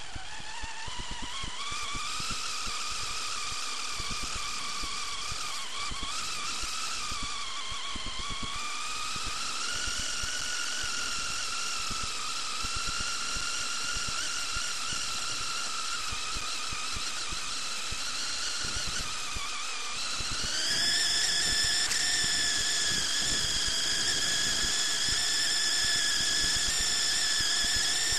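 RC buggy's motor and drivetrain giving a steady high-pitched whine that wavers in pitch with speed, then rises and grows louder about twenty seconds in as the buggy speeds up, over a constant crackle.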